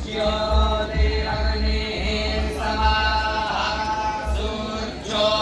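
Group of voices chanting Vedic Sanskrit mantras in unison, in long held syllables, with a low rumble underneath.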